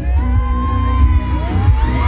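Loud music over a concert sound system with a heavy bass, with a large crowd and high voices gliding in pitch above it.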